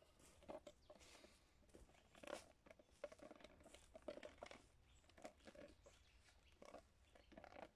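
Faint footsteps crunching and rustling through dry leaf litter and twigs on a forest floor, in irregular steps and crackles.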